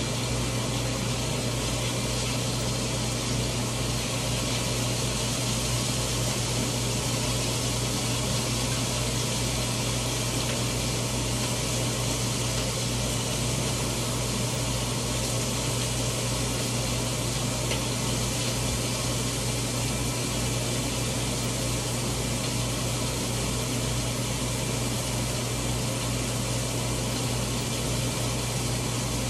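Steady hum and even hiss of a running fan motor, unchanging the whole time.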